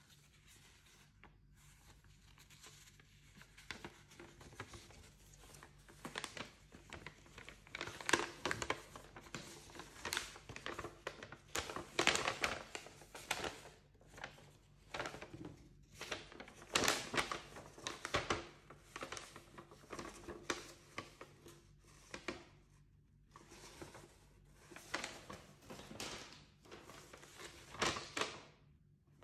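A folded paper safety leaflet being unfolded and opened out by hands in cotton gloves: irregular rustling and crinkling of paper in uneven bursts, with brief pauses between handlings.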